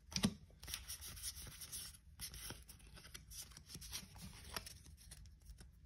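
Pokémon trading cards being handled: soft, irregular rustles and light clicks as cards are slid off the stack and set down.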